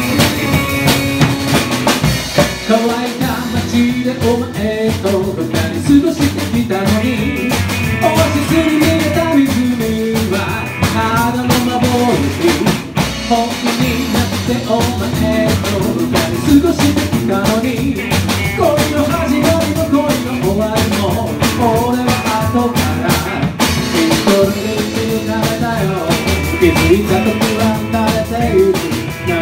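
A small band playing live: electric guitar, upright double bass, drum kit and acoustic guitar, with a steady drum beat.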